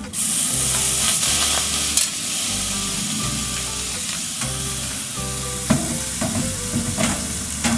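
Steak sizzling loudly the moment it meets the hot perforated steel tray of an overhead infrared top-heat grill, then sizzling steadily as it goes in under the burner. A few metal clicks of the tongs and tray.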